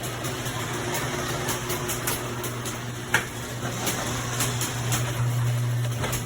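Garage door opener motor running with a steady hum, with a single sharp click a little after three seconds.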